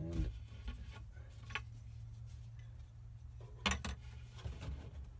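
Two sharp knocks in quick succession about three and a half seconds in, with a lighter tap earlier, as a plywood battery plate is handled and seated in an RV battery compartment, over a low steady hum.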